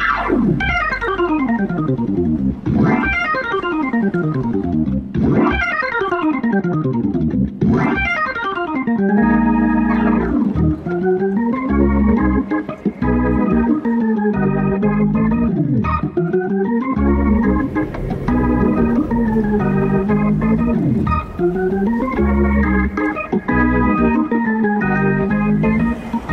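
Hammond organ playing: it opens with repeated downward sweeping runs, then about nine seconds in settles into held, swelling chords over a low bass.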